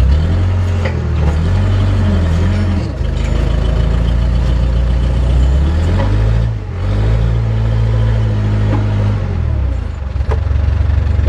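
JCB backhoe's diesel engine running under load, its pitch rising and falling as it is revved up and eased off, with a few sharp clanks.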